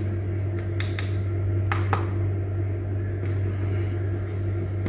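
A steady low hum throughout, with a few short, sharp clicks scattered through the first three seconds, two of them close together a little under two seconds in. The clicks fit small tactile push-button switches being pressed by hand.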